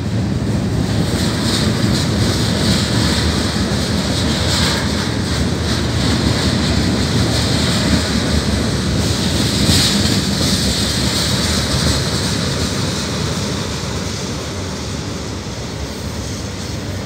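Freight cars of a long mixed freight train rolling past, covered hoppers and then an autorack. Steel wheels on the rails make a steady rumble with a higher hiss above it, easing off slightly over the last few seconds.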